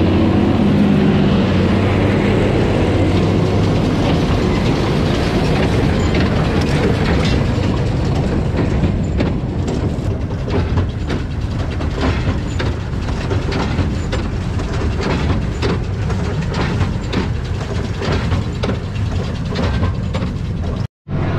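Claas tractor engine running under load as the tractor passes close by, giving way to the steady clatter and rhythmic knocking of a Massey Ferguson 185 square baler working through straw.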